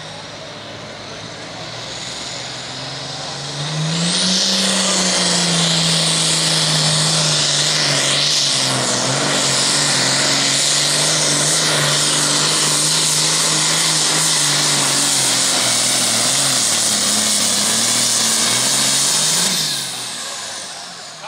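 A super farm class pulling tractor, a John Deere-based turbocharged diesel, opens up about four seconds in with a rising turbo whistle. It runs at full power with heavy hiss through a pull of about fifteen seconds. The engine note then drops away near the end as the throttle closes and the tractor stops.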